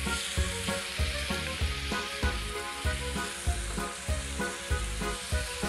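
Rice-flour-coated seer fish steaks sizzling in a little oil in a grill pan as they are turned over with a wooden spatula, over background music with a steady beat.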